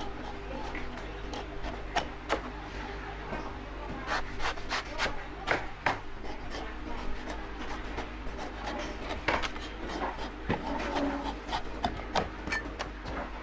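A steel cleaver chopping and shaving the husk of a young coconut against a wooden chopping block: irregular sharp cuts and scraping strokes, over a steady low hum.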